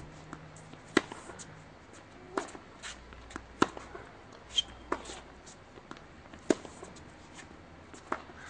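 Tennis forehands: a tennis ball struck by a racket three times, with sharp pops about every two and a half to three seconds. Each is preceded by a softer tap of the fed ball bouncing on the hard court.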